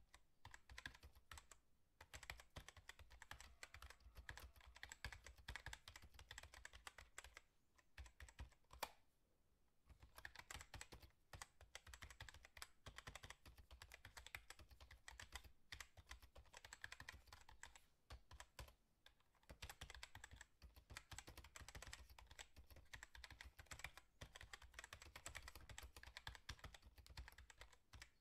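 Faint, rapid, irregular clicking and tapping, like fingers on keys, broken by a few short pauses.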